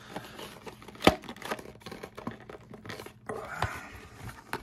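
A cardboard trading-card pack being opened by hand: rustling and tearing of card and paper, with a sharp snap about a second in.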